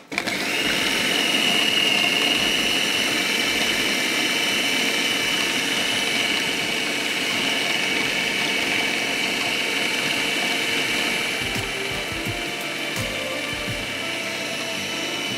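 Electric food processor motor running steadily with a held whine, chopping raw beef mince with onion, tomato and green chillies into chapli kabab mixture. It starts at once, gets a little quieter over the last few seconds and cuts off at the end.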